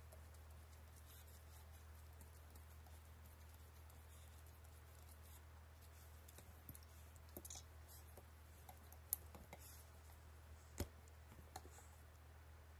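A dog chewing a Kong Widgets chew toy: faint, scattered clicks of teeth on the toy, mostly in the second half, with two sharper clicks near the end, over a low steady hum.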